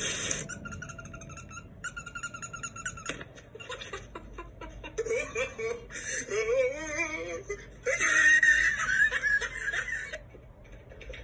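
Elderly woman laughing and giggling in several bouts, mixed with sound from a funny animal video played through a tablet's speaker.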